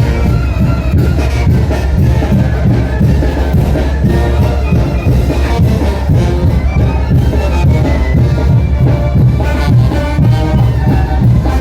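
A Mexican brass banda playing a son de chinelo: brass melody over a steady bass and a regular drum beat.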